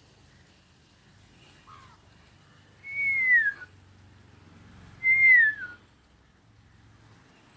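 A bird giving two loud, clear whistled calls about two seconds apart, each sliding downward in pitch, with a fainter short falling note before them.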